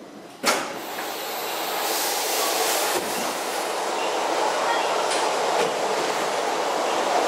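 Stockholm metro train (blue C20 stock) running on the opposite platform track, heard through the open doors of a standing car, its running noise growing steadily louder. A sharp knock about half a second in.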